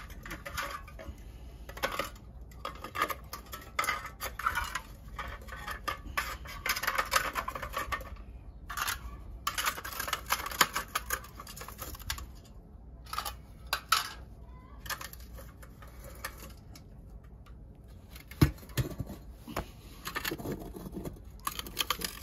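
Scrap copper ground wire clinking and rattling as gloved hands bend it and pack it into a crucible: an irregular run of clicks and metal clatter, with one sharp knock late on.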